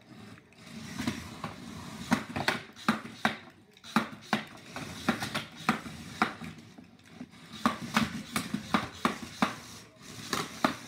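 HEXBUG BattleBots toy robots fighting in a plastic arena: an irregular run of sharp plastic clacks and knocks, several a second, as the bots ram each other and hit the arena walls.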